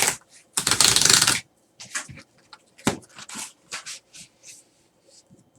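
Packaging being handled: a loud rustle about half a second in, lasting under a second, followed by a scatter of small rustles and clicks.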